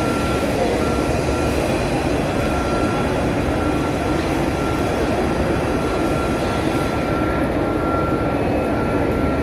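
Steady ambience of a large crowd in the Masjid al-Haram, a dense wash of many distant voices and movement, with a faint high tone that drops in and out.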